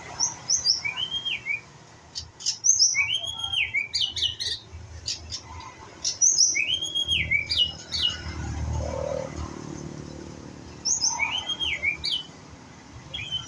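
White-rumped shama singing: a phrase of quick high notes followed by an arched whistled note, repeated about four times with pauses between.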